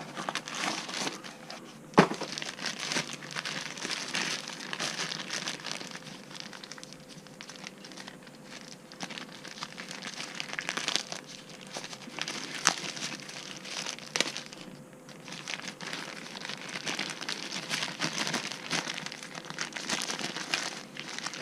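Plastic protective bags crinkling and rustling as the parts of a robot vacuum are unwrapped, with a few sharp knocks, the loudest about two seconds in.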